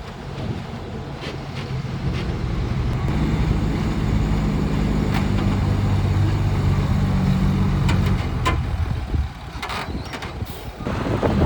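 Volvo EC480 excavator's diesel engine working hard, its steady note building over the first few seconds, holding, then easing off near the end, with a few sharp knocks.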